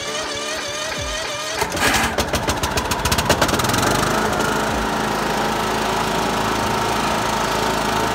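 Riding lawn mower's Kohler engine being started: about two seconds in the starter cranks it in quick, rapid strokes, it catches at about three and a half seconds, and then runs steadily.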